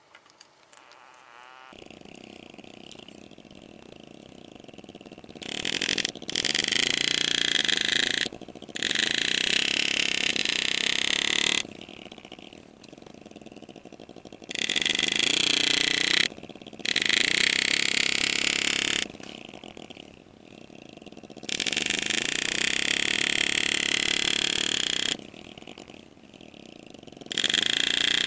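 Power-assisted engraving handpiece running in bursts of a few seconds, with short pauses between, as the graver cuts into a sterling silver ring; a steady low hum runs underneath.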